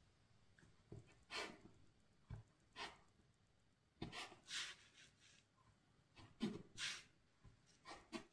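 Quiet, scattered handling sounds: about ten soft taps and brushing rustles at uneven intervals, the loudest a little past the middle.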